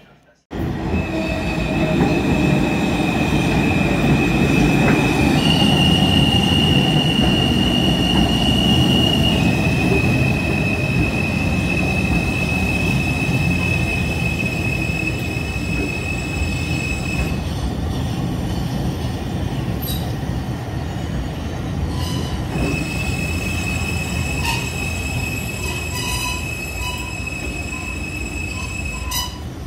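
New York City subway New Technology Train rolling slowly, a steady rumble with a high squeal that shifts pitch a couple of times, fades out midway and comes back, plus a few sharp clicks in the later part.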